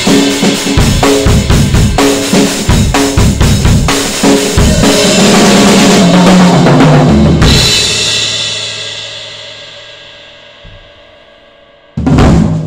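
Sound Percussion Labs acoustic drum kit played solo: busy fills on snare, toms and kick, then a fast roll that falls in pitch. A crash cymbal hit rings out and fades over several seconds, and one last loud hit lands near the end.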